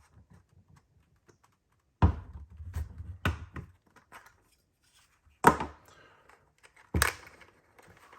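Sharp plastic clicks and knocks, a handful spread out with quiet between, as a Fluke 87 multimeter is handled and its battery door is opened with a flat-blade screwdriver.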